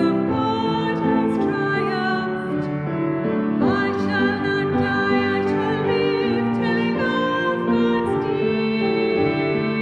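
Church music: a solo voice singing with vibrato over sustained keyboard chords, sung between the second reading and the Gospel at Mass as the Gospel Acclamation.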